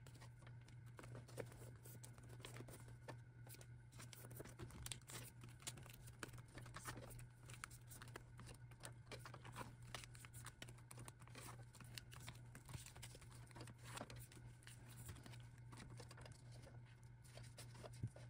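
Faint rustling and crinkling of thin plastic as photocards are pulled from soft plastic sleeves and slid into a binder's clear pocket pages, with small clicks throughout and a low steady hum underneath.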